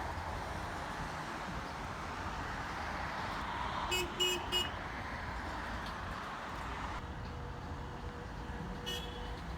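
Car horn tooting three times in quick succession about four seconds in, over the steady noise of passing road traffic. A single brief beep follows near the end.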